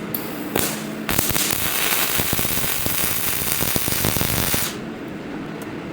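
Robot welding arc crackling and spattering for about three and a half seconds, starting about a second in and cutting off abruptly, over a steady low hum.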